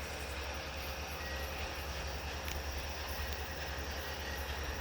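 Railway maintenance-of-way track machines running with a steady low rumble, with two faint short beeps.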